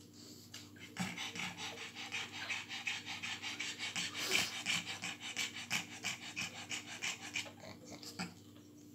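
Mother pug panting hard, rapid and even at about four or five breaths a second; it starts about a second in and dies away near the end.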